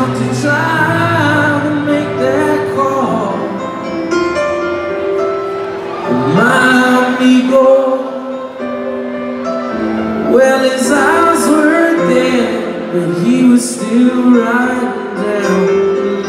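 Slow live ballad from a rock band: held piano chords under a lead singer whose sung phrases swell and bend, in an arena's reverberant sound.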